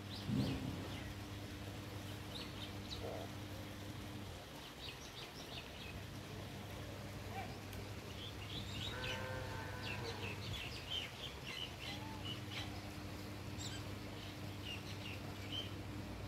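Small birds chirping in quick, scattered notes over a steady low hum. The hum fades after about four seconds and returns after about twelve. There is a knock just after the start, and a short drawn-out animal call around nine seconds in.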